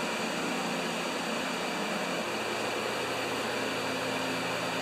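A steady fan running: an even hiss with a low hum that grows a little stronger about halfway through.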